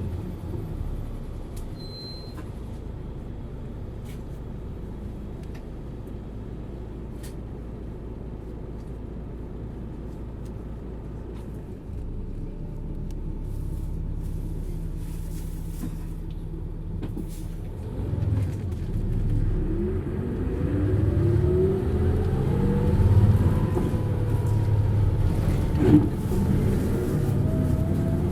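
Hino U-HT2MLAA bus engine running at a low, steady rumble, then pulling away and accelerating from about twelve seconds in. A strong whine rises and falls in pitch under load: the abnormal noise this poorly running bus is known for. There is a sharp click near the end.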